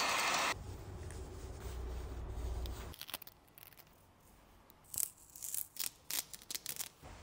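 Masking tape being peeled off a freshly painted brake caliper in several short, quick rips in the second half. Before that, an aerosol spray can's hiss stops about half a second in, and a low hum runs until about three seconds.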